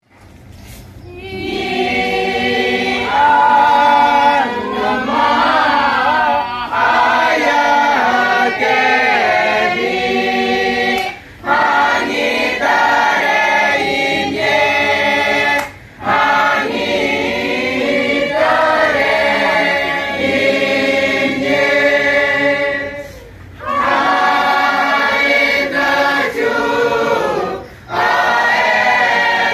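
A mixed choir of men and women singing together in sung phrases, broken by brief pauses for breath about every four to seven seconds. The singing swells in over the first couple of seconds.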